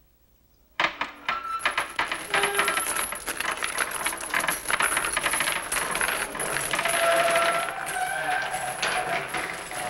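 A dense metallic clattering and jingling sound effect that starts suddenly about a second in and keeps going, with a few short thin tones over it.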